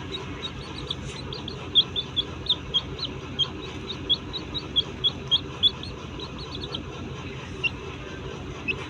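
Small pet birds chirping in a quick series of short, high, slightly falling notes, about three to four a second, which thins to single chirps after about seven seconds. The birds are squabbling as they settle to sleep. A steady low hum runs underneath.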